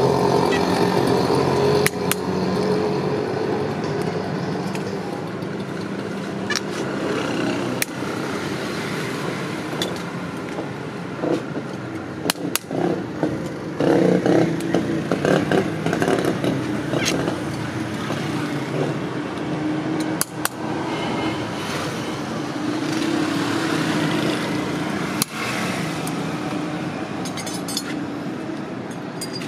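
Motor vehicle engines running in street traffic, a steady hum that swells and fades as vehicles pass, with scattered short clicks.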